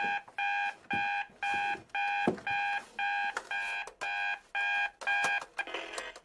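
Digital alarm clock beeping, about two short beeps a second, which stops near the end as a hand switches it off with a brief rattle.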